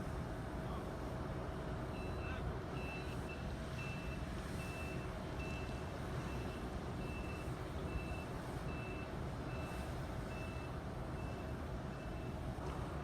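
Vehicle reversing alarm beeping: evenly spaced short beeps at one high pitch, about one every three quarters of a second, starting about two seconds in and stopping near the end, over a steady engine rumble.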